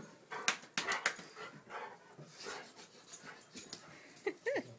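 A Weimaraner play-fighting with its owner: soft, scattered scuffling sounds, then a brief rising whine near the end.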